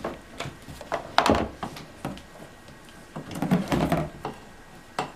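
Corrugated plastic vacuum cleaner hose being handled and pulled out of a cardboard box: a string of light knocks and thunks as the hose and its fittings bump the box, with a busier patch of handling noise about three and a half seconds in.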